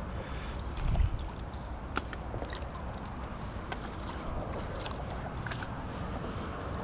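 Landing net sloshing in the shallow water at the bank, over a low rumble of wind on the microphone. A thump about a second in and scattered sharp clicks.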